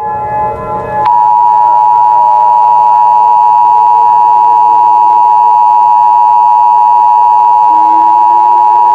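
Emergency Alert System attention signal: a loud, steady two-tone alarm of two pitches sounded together (853 and 960 Hz), starting about a second in and holding without a break.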